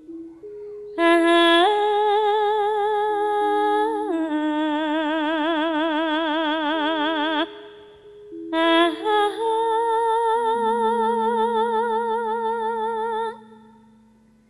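A woman singing a Javanese jineman in three long, drawn-out phrases, each held note wavering with heavy vibrato, over steady sustained keyboard notes. The singing stops shortly before the end.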